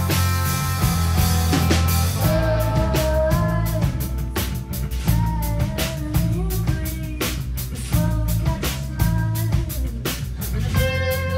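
Live indie rock band playing: a drum kit keeping a steady beat over electric bass, with a woman singing the lead vocal.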